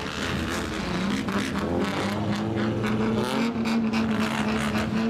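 Straight-piped classic Japanese car engine revving: the pitch climbs over the first few seconds, then holds steady, with a rapid crackle from the open exhaust.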